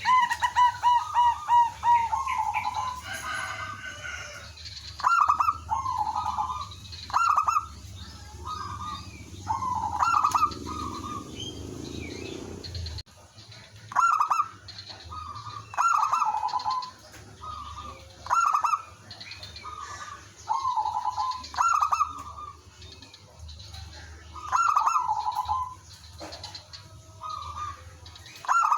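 Zebra doves cooing: short bouncy phrases of quick staccato notes, repeated about once a second, opening with a fast run of notes; a lure bird is calling and other doves are answering.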